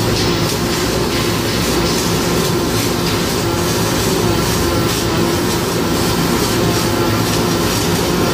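Electric welding arc crackling steadily on a steel truck part, with a steady low hum underneath.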